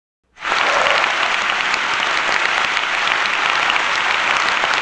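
Crowd applause: many hands clapping in a dense, even patter. It starts abruptly about half a second in.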